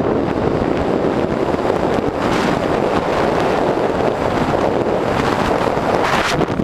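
Wind rushing over the microphone of a fast-moving electric bike, a loud steady rush with a brief dip near the end.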